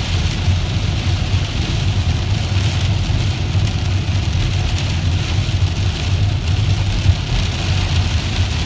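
Heavy rain on a car, a steady hiss over the low, even drone of the car's engine and road noise.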